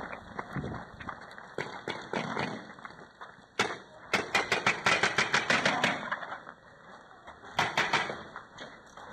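Paintball marker firing: one shot, then a rapid string of about a dozen shots at roughly seven a second, and a short burst of three or four more near the end.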